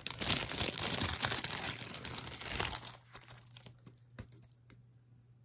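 Plastic zip-top bag crinkling and rustling as it is handled and opened, for about three seconds, then a few light clicks.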